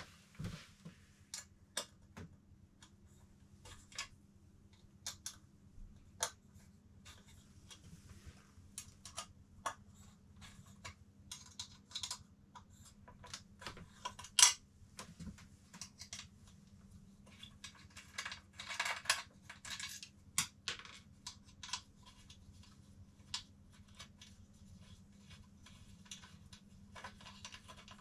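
Fingers picking at and peeling a sticker off a motorcycle's plastic windshield: scattered light clicks, ticks and scratches, with one sharper click about halfway through and a longer stretch of scraping about two-thirds of the way in.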